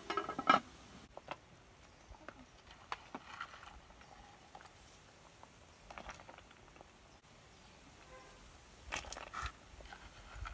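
Aluminium pot lid handled with a cloth and lifted off, a brief metallic clatter in the first second. Then scattered soft taps and plops as handfuls of beans or nuts are dropped into the stew, with small bursts about six seconds in and again near nine seconds.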